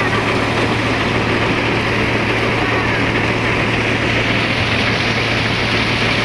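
Paddy thresher running steadily under power: a loud, continuous mechanical drone with a constant low hum that neither rises nor falls.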